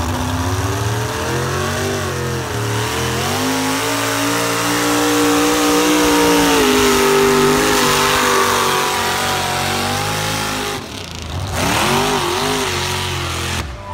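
Pulling truck's engine at full throttle under the load of the sled, its revs climbing over the first few seconds, then holding high and fairly steady. The sound breaks off sharply about eleven seconds in, then comes back briefly, rising and falling.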